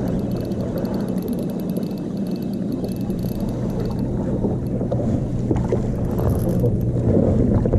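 A steady low engine hum, with wind and water washing around it. Over the first half, a spinning reel being wound in after a rockfish bite gives a faint rapid ticking.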